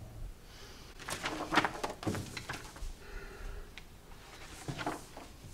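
Manila paper folders rustling and sliding on a desk as they are handled and laid out: several short rustles over the first couple of seconds, then a few more near the end.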